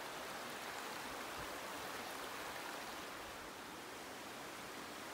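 Shallow river running over rocks and boulders: a steady, even rush of water.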